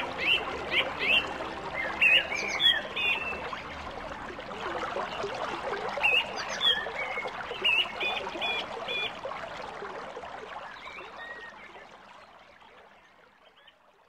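A mountain stream rushing, with small birds chirping in short, repeated calls over it; the sound fades out over the last few seconds.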